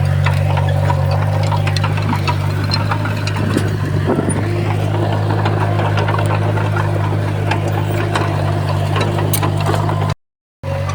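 Crawler bulldozer's diesel engine running steadily, with scattered clanks and rattles over it. The sound breaks off completely for a moment about a second before the end.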